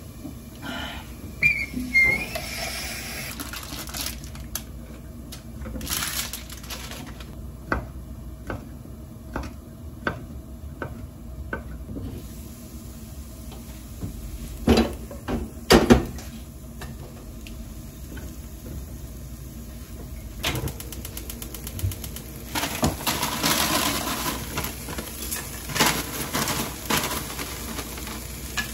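Cookware being handled at a stove: a frying-pan lid is lifted off and set down with clanks, and there are scattered knocks and clinks of utensils and pans, the loudest a pair of knocks midway. Near the end comes a longer stretch of noisier sound as food goes into the pan.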